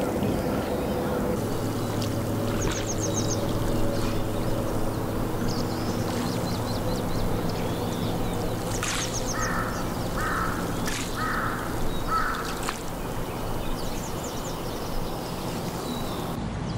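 Lakeshore ambience: a crow caws four times, about a second apart, about two-thirds of the way through. Under it runs a steady low drone, and a small bird gives faint high trills now and then.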